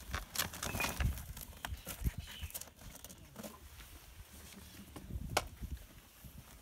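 A cardboard box being closed, lifted and carried: irregular knocks and scuffs of cardboard, loudest with a sharp knock about five seconds in, then footsteps on gravel as it is carried off.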